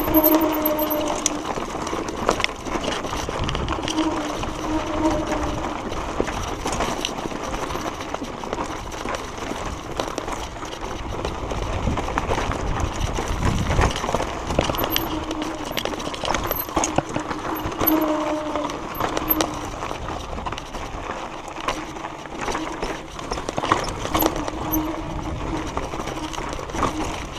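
Mountain bike rolling fast down a rocky dirt trail, heard from a camera on the bike: a steady rush of wind and tyre noise with frequent clicks and rattles from the bike jolting over stones, and now and then a faint hum.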